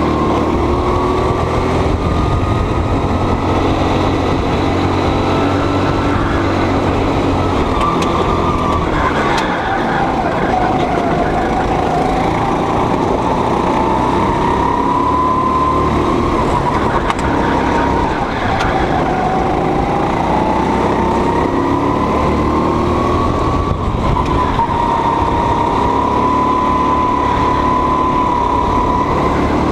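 Go-kart engine running hard under the driver, its pitch rising and falling with speed and dropping sharply twice as the kart slows.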